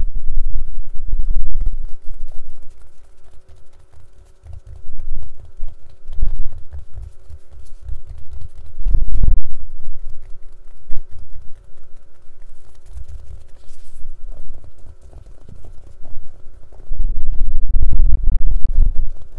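A case being tapped and handled by fingers, in uneven clusters of dull taps and knocks.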